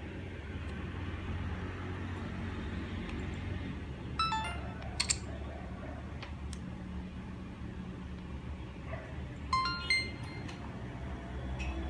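Insta360 ONE X2 360-degree camera playing short electronic chimes, one about four seconds in and another near the end as the camera powers on, over a low steady hum.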